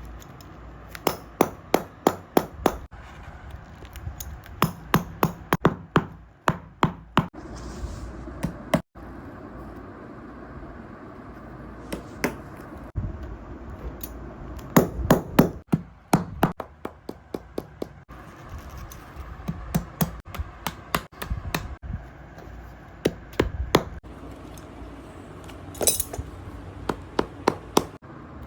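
A hammer tapping in quick runs of several strikes, with short pauses between runs, as in hammering during shoe repair.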